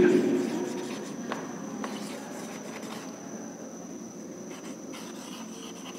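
Marker writing on a whiteboard: faint scratching strokes with a couple of light ticks, over a faint steady high-pitched whine.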